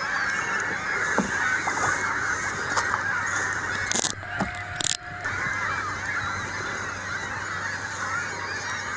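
A large colony of gulls calling nonstop, many squawks overlapping into a continuous din.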